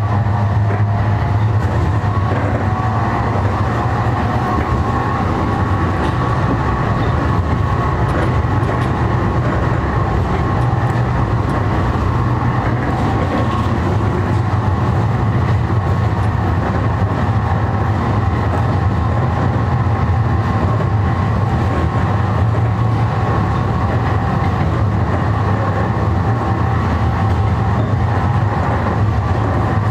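SGP Type E1 tram running, heard from inside the passenger saloon: a steady low hum with fainter higher tones over the rolling of the wheels on the rails.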